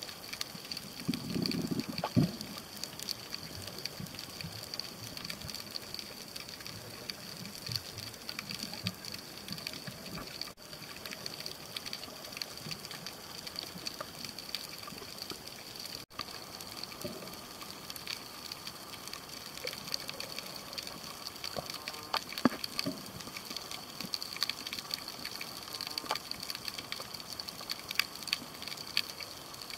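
Underwater ambient sound heard through a camera's waterproof housing: a steady hiss with a thin high whine and constant faint crackling. A few low, muffled bumps of water movement come about a second in and again about two-thirds through.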